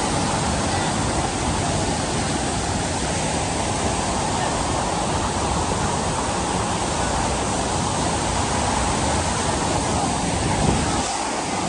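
Steady, loud rush of water from a waterfall and the rain-swollen stream below it.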